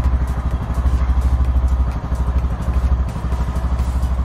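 Bajaj Pulsar N160's single-cylinder engine idling steadily with an even, pulsing beat.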